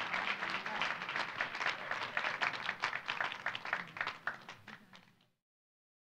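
Audience applauding, the clapping thinning out and fading away about five seconds in.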